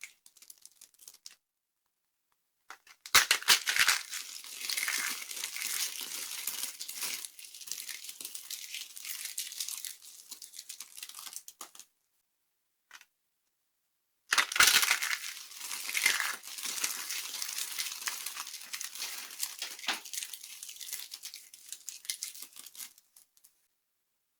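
Dry soap being crushed and crumbled: two long bouts of dense crunching and crackling, each opening with a few sharp cracks, with a short silence between them.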